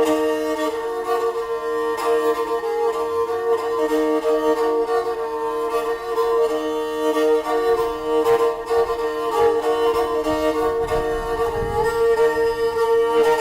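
Background music: a fiddle-like bowed melody over a steady held drone note.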